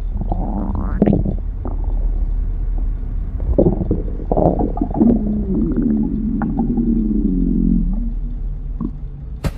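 Stomach growling: irregular gurgles over a steady low hum, a rising squeal about a second in, and a long wavering growl from about five to eight seconds. The sound cuts off suddenly at the end.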